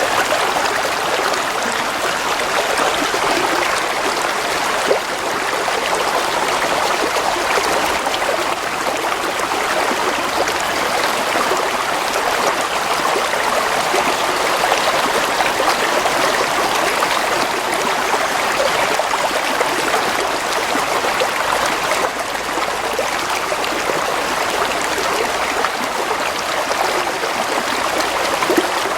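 Stream of water flowing and trickling, a steady, even rush.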